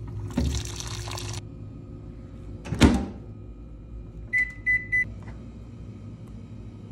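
Hot water dispenser pouring water into a paper cup for about a second, then a loud thump, then three short beeps from a microwave oven's keypad as its buttons are pressed. A steady low hum runs underneath.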